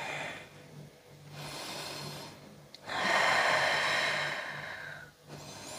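A person breathing slowly and audibly while holding a yoga pose: a softer breath about a second in, then a longer, louder breath from about three to five seconds.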